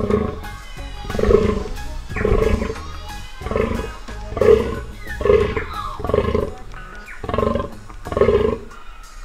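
Fallow deer buck giving its rutting groan: a run of short, evenly spaced groans, about one a second.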